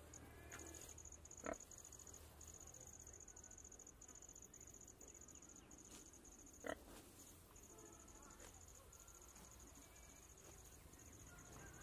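Faint insects trilling, a steady, rapidly pulsing high chirr with short breaks. Two brief sharp clicks stand out, about a second and a half in and again near seven seconds.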